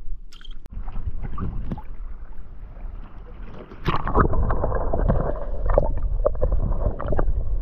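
Water noise with scattered clicks as a small fish is released. About four seconds in it turns abruptly into the muffled, dense rush and gurgling of a camera microphone under water, with bubbles and clicks.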